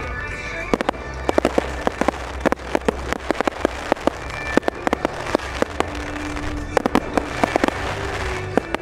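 Aerial fireworks bursting overhead, with rapid, irregular crackling pops from glittering crackle stars.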